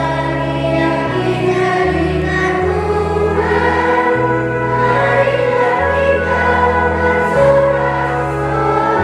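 Children's choir singing a hymn with Yamaha Stagea Electone organ accompaniment, the organ holding low bass notes that change every second or so under the voices.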